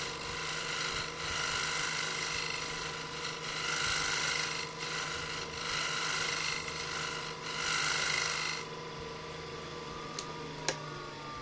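Flat standard woodturning scraper, tilted about 45 degrees, shear scraping wood spinning on a lathe with a light touch: a rasping scrape in several passes of a second or two each, over the lathe's steady hum. The scraping stops about three-quarters of the way through, leaving the hum, which starts to fall in pitch near the end, with a couple of clicks.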